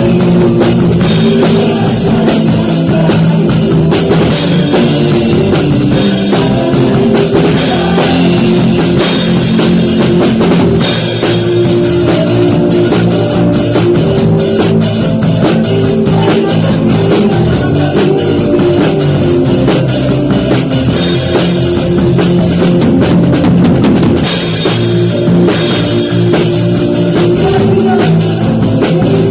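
Acoustic drum kit playing along with a live worship band of keyboard, electric guitar and bass guitar.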